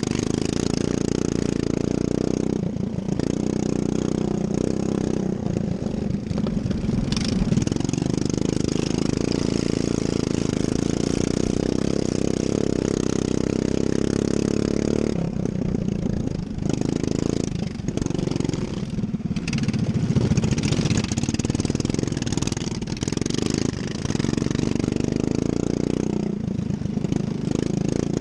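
Racing lawn mower engine running hard and steadily, easing off briefly a few times in the second half and picking back up.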